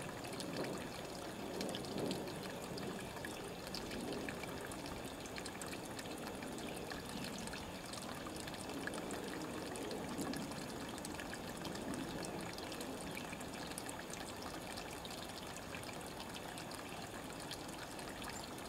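Small forest stream trickling steadily.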